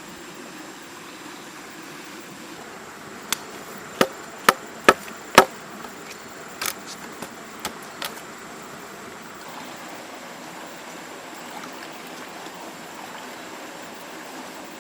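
A run of about nine sharp knocks, like chopping or hammering, clustered from about three to eight seconds in, the loudest in the middle. Under them runs a steady rushing hiss like flowing water.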